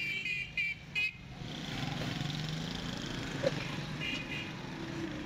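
Street traffic: a vehicle horn beeps in quick short toots, a run of about five or six near the start and about three more about four seconds in, over the steady running of a motor vehicle engine.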